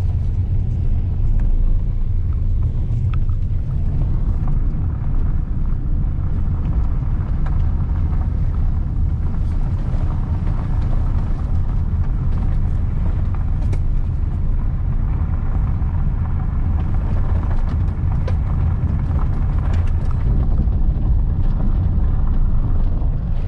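Van driving along a road: a steady, low rumble of engine and road noise, with a few faint clicks scattered through it.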